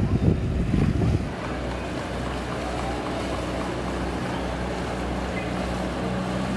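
Small outboard motor on an open skiff running steadily, with wind on the microphone. Louder, irregular noise fills the first second.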